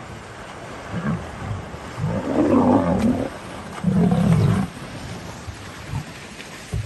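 Two loud, deep animal roars, the first about two seconds in and the second about four seconds in, a shorter one before them, over splashing water as a hippo and lions clash in a river.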